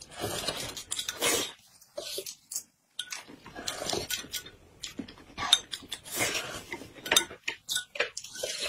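Spoons clinking against bowls and a glass cup, mixed with short bursts of slurping and eating noises as two people eat quickly, in irregular spurts with a brief pause about two and a half seconds in.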